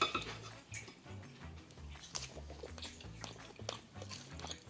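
A person chewing and biting food close to the microphone, with scattered short mouth clicks, over quiet background music.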